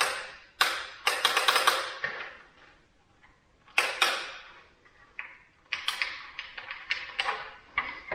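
Handling noise of hard plastic tool gear and packaging: irregular sharp clacks, taps and rustles in quick clusters, with short pauses between them.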